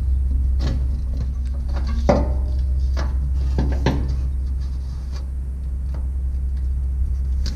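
Scattered light clicks and knocks as a fuel sending unit is wiggled up out of its hole in the top of a truck fuel tank, the strongest about two seconds in. A steady low hum runs underneath.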